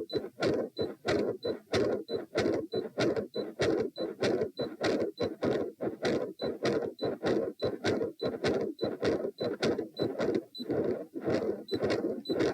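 Heart sounds through a stethoscope during a Valsalva manoeuvre, beating rapidly and evenly, with a short high beep from an ECG monitor about three times a second. The uploader asks whether the sound between beats is the continuous machinery murmur of a patent ductus arteriosus (PDA), in a heart known to have a right-to-left shunt through a PFO/ASD.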